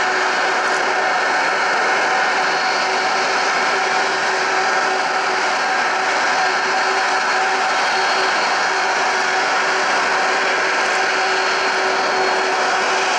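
Airbus A380's four Engine Alliance GP7200 turbofans running at low taxi power as the airliner rolls slowly past: a steady whine made of several held tones over an even rushing noise.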